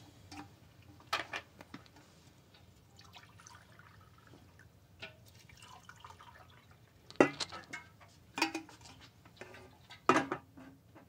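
Washing-up at a kitchen sink: scattered clinks and clatters of crockery with a little running water and dripping. The loudest clatter comes about seven seconds in, with others near eight and a half and ten seconds.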